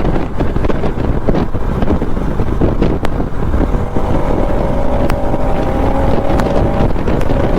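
Wind buffeting the microphone on a moving motorcycle, over the bike's running engine. A steady pitched note joins for about three seconds in the middle, then stops.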